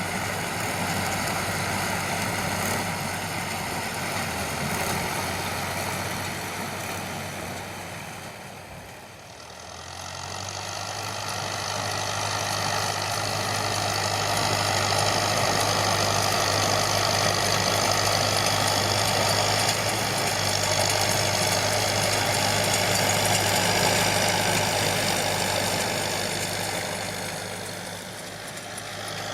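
John Deere 5720 tractor's diesel engine running steadily, pulling a Feraboli round baler through straw. The sound dips about nine seconds in, then comes back louder and holds before easing off near the end.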